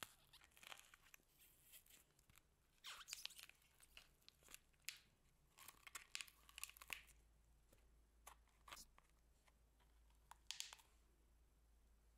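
Faint crackling and popping of bubbly glitter slime being scooped out of a plastic tub by hand, in several short bursts.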